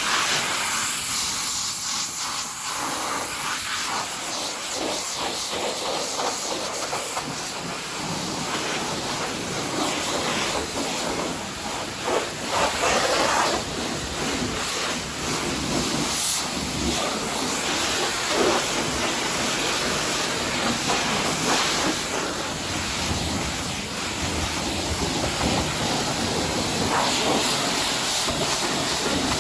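High-pressure rinse wand at a self-service car wash spraying water onto a car: a steady hiss of spray that rises and falls a little as the jet moves over the bodywork.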